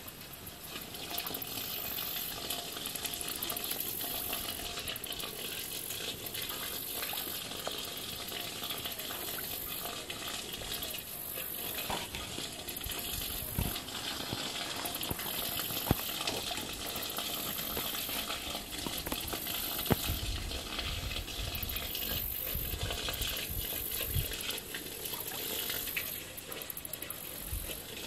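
Steady watery wash at the pond's edge, with a few short sharp pops as fish rise to the surface. A high buzzing pulses on and off above it.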